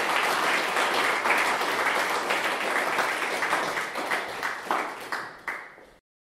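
Audience applauding, thinning out to a few scattered claps and then cutting off suddenly near the end.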